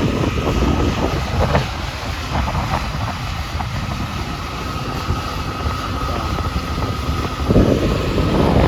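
Heavy farm machinery running nearby: a steady low engine rumble with a faint steady whine above it, swelling a little louder near the end.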